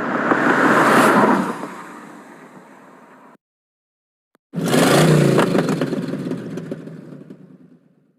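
A car passing by, loudest about a second in and fading away until it cuts off. After a second of silence a second car recording starts abruptly: an engine revving and pulling away, fading out near the end.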